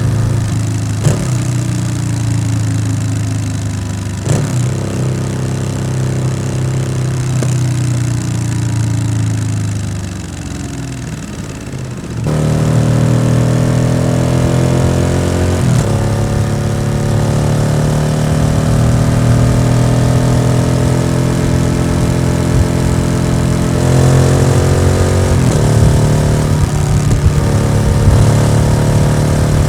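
Yamaha XSR700's 689 cc parallel-twin engine through an SC-Project aftermarket exhaust, being ridden and pulling through the gears. The pitch climbs and drops sharply at each upshift, and the sound changes abruptly about twelve seconds in.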